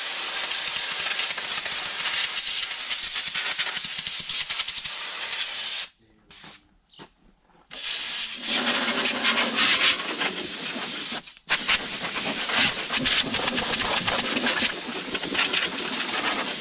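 Compressed-air blow gun hissing in long blasts as dust is blown out of a tractor's screen and radiator stack. The air stops for about two seconds roughly a third of the way in, then runs on with one brief break.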